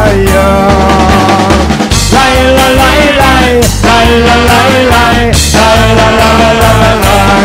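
Lively music with a steady, repeating bass beat and a melody line over it.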